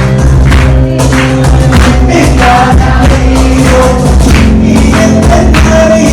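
Background music: a Tamil film song with percussion playing steadily.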